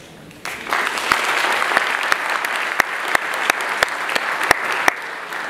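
Audience applauding, starting about half a second in, with a few louder individual claps standing out from the steady clapping.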